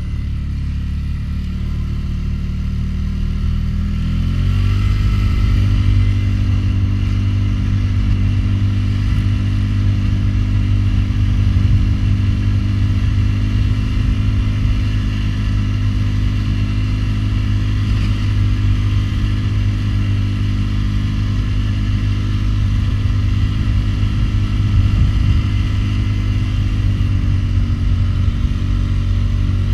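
Polaris Sportsman 500 HO ATV's single-cylinder four-stroke engine running under load while pushing snow with a front plow. Engine speed rises about four seconds in, then holds steady.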